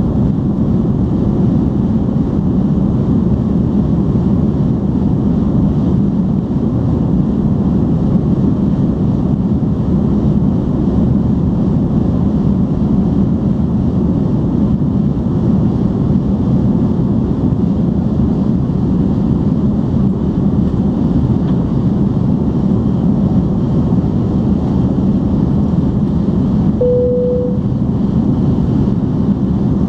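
Steady cabin noise of an Airbus A310-325 in flight: an even, low roar of engines and airflow heard from a seat beside the wing. About three seconds before the end, a brief single tone sounds over it.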